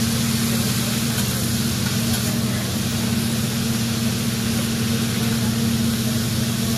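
Food sizzling on a hot griddle over a steady low hum.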